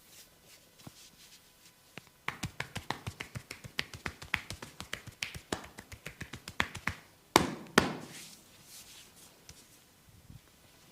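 Hands tapping rapidly on a head in a barber's head massage, about six strikes a second for nearly five seconds, then two louder strikes in quick succession.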